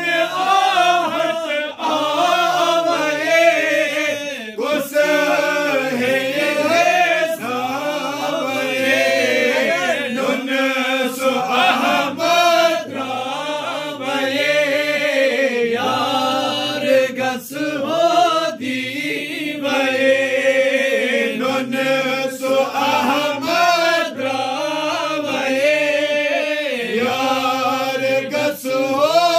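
Group of men chanting devotional verses together in long drawn-out lines with a wavering pitch.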